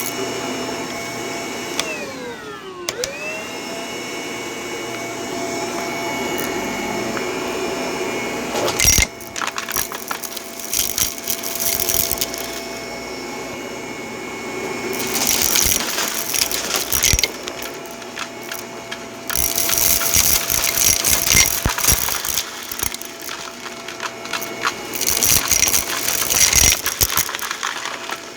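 Vacuum cleaner running and sucking up crunchy debris, which rattles and crackles through it in dense clusters from about nine seconds in. Near the start the motor's pitch drops sharply and springs back up.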